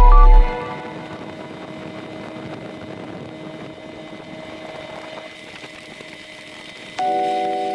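Speedboat engine running at a steady pitch under a hiss of wind and water. Music cuts off just after the start and comes back suddenly near the end.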